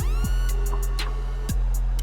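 Background electronic music with a steady drum-machine beat of deep kick drums and ticking hi-hats, and a rising synth sweep right at the start.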